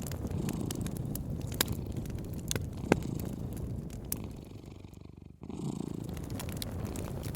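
A cat purring steadily over a crackling wood fire, with a few sharp pops from the fire. The sound fades away briefly about five seconds in, then cuts straight back in.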